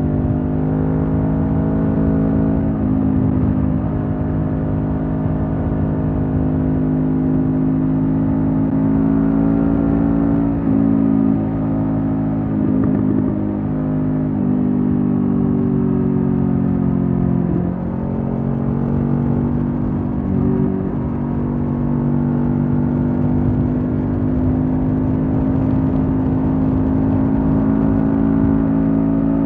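Honda CB500F's 471 cc parallel-twin engine through a Mivv GP Pro stainless exhaust, running steadily with the bike under way. Its note holds fairly even with a few shifts in pitch as the throttle changes, including a short dip a little past the middle before it climbs again.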